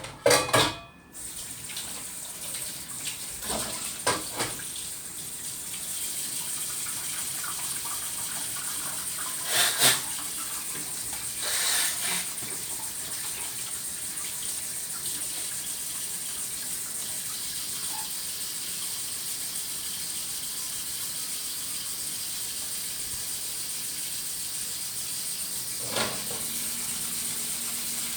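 Tap water running steadily into a sink, filling a used dish to soak it. A few short knocks of dishware come near the start, a few times in the middle, and once near the end.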